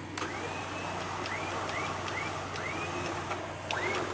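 Electric winch motor jogged in about six short bursts, each starting with a click and a whine that rises quickly in pitch and then holds, over a steady low engine idle.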